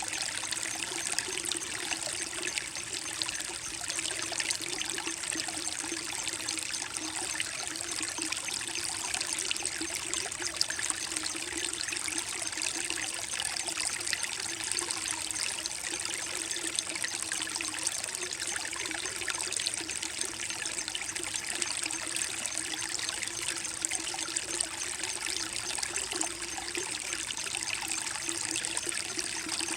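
Small creek trickling and babbling over rocks, a steady splashing flow with fine bubbling detail.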